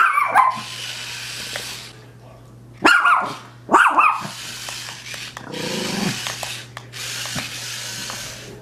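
Maltese dog barking at a toy spider: a high bark right at the start, then a quick run of three barks about three seconds in, and a low growl near six seconds. Between the barks a hiss starts and stops several times.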